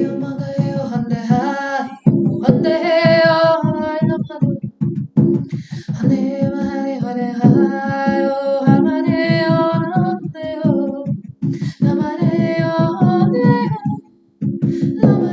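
A woman singing wordless light-language vocals in wavering phrases with short pauses, over a steady beat on a hand-held frame drum.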